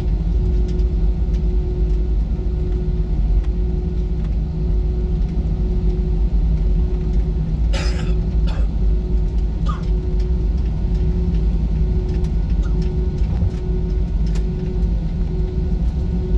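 Airbus A320 cabin noise during a slow taxi: a steady low rumble of the engines at low power and the rolling gear, with a steady hum over it. A short clatter about eight seconds in.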